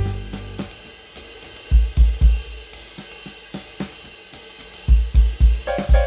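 Instrumental music in a drum break: cymbals and hi-hat keep time while the melody drops out, with two clusters of heavy bass drum hits, and the full band comes back in near the end.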